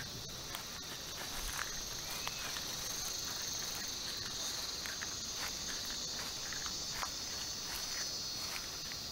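Steady high-pitched chorus of insects, with scattered faint ticks and a short arching chirp about two seconds in.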